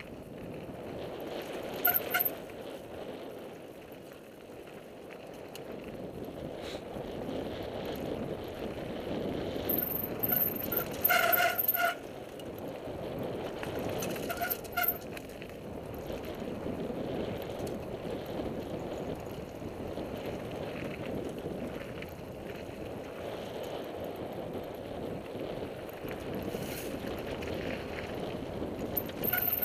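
Mountain bikes rolling along a dirt singletrack, with a steady rush of wind and tyre noise on the helmet-camera microphone. Several short, high brake squeals cut through, the loudest a cluster about ten to twelve seconds in.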